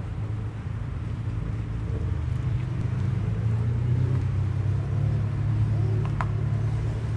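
Car engines running at low revs as cars roll slowly past, a steady low rumble that swells a little in the middle.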